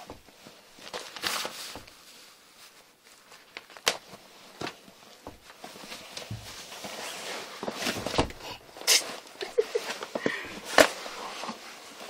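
Clothing rustling and scattered knocks and bumps as a person shifts and squeezes into a cramped space. It grows busier in the second half, with the loudest knock near the end.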